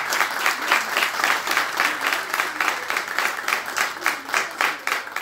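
A small group of people applauding with a dense, irregular run of hand claps that thins out at the end.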